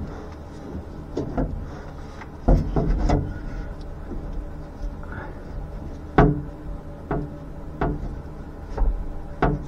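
Uneven metal knocks and clunks as a roller camshaft is worked up into the cam bearings of a 1979 Corvette's small-block V8 from underneath, the cam's lobes and journals bumping the block. The loudest knocks come about two and a half seconds in and just after six seconds, over a faint steady hum.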